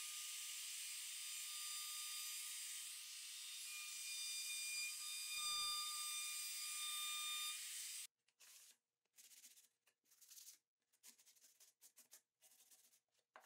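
Trim router with a roundover bit running, a steady hiss with a high whine, cutting off suddenly about eight seconds in. Then faint short rubbing strokes of a sanding sponge on wood edges.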